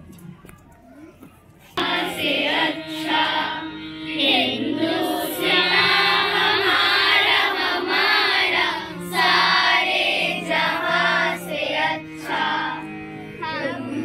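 A school children's music band singing a song with sustained instrumental notes underneath, starting abruptly about two seconds in after a short quiet stretch.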